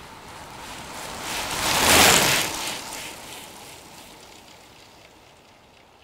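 Vintage Koga Miyata Roadrunner racing bicycle passing by very fast: a rushing noise that swells to a sharp peak about two seconds in, then fades away.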